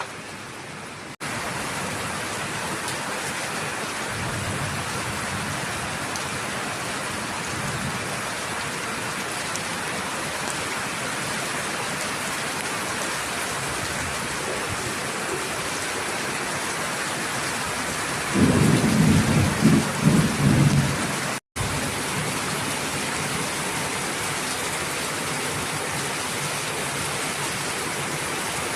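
Heavy rain pouring steadily, with thunder rumbling low a few times. The loudest thunder rumble comes about two-thirds of the way through and is followed by a brief dropout in the sound.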